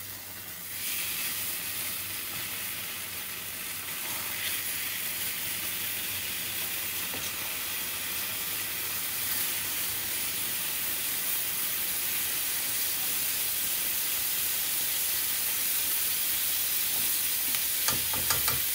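Curry sizzling in a smoking-hot small iron karahi, the hiss jumping up about a second in as the sauce hits the hot pan and then building steadily. A ladle stirs it, with a few metal clicks near the end.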